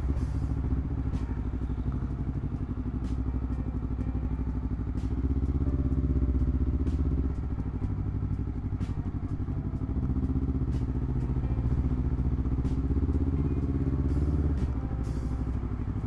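Honda CBR250RR's parallel-twin engine running through a Villan MV2 aftermarket exhaust at low road speed, the throttle opened and eased a few times so the exhaust note swells and drops. Scattered faint sharp ticks sit over it.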